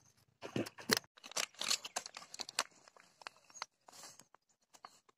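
Knife blade scraping the scales off a small tilapia, a quick run of short rasping strokes that stops about three and a half seconds in, followed by a faint rustle.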